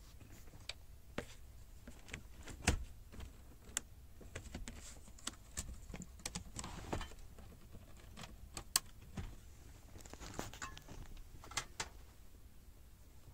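Irregular clicks and light rattles of cable plugs and leads being handled against the metal cage of a Sony CDX-M600R car radio while connectors are pushed into its rear sockets, with a couple of sharper clicks, one about three seconds in and one near nine seconds.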